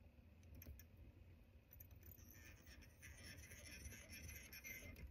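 Near silence: room tone with faint scattered ticks and, from about two seconds in, a faint rustle of thread and fly-tying materials being handled at the vice.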